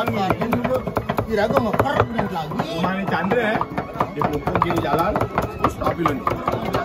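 Cleavers chopping chilies on round wooden chopping blocks: rapid, uneven knocking of more than one blade at once.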